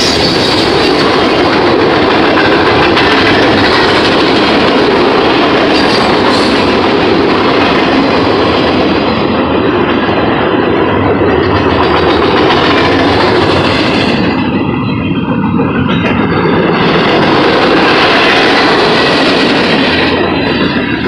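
Freight cars rolling past close by (gondolas, a tank car, covered hoppers): a loud, steady roar of steel wheels on the rails.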